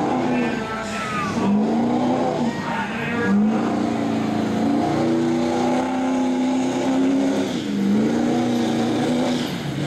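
Ford Super Duty pickup's Power Stroke diesel engine running hard under full load while pulling a weight-transfer sled. Its pitch sags and climbs back about three times as the engine works against the sled.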